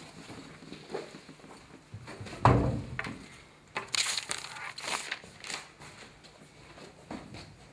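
A person slumping forward onto a classroom desk with one heavy thump, followed by a few seconds of rustling and scraping movement noise and a few light knocks.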